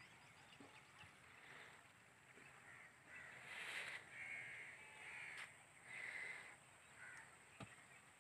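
Crows cawing, faint: a run of about five harsh caws, starting about three seconds in.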